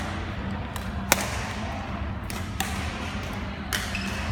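Badminton rally: several sharp racket-on-shuttlecock hits, about a second apart, the loudest about a second in, over a steady low hum.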